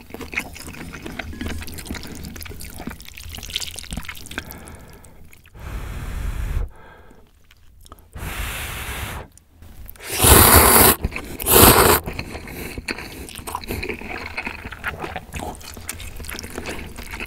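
Close-miked eating of instant ramyeon: several rushing slurps of noodles, the two loudest a little past the middle, with wet chewing and mouth clicks of noodles and sausage slices before and after.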